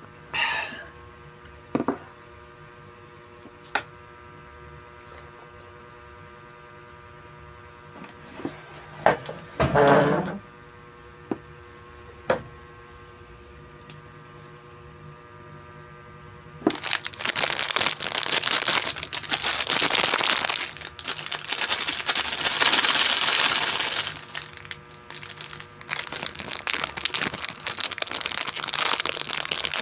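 Plastic food packaging crinkling and crackling loudly and continuously as it is handled, starting a little past halfway. Before that, a quiet stretch with a faint steady hum and a few small clicks and knocks.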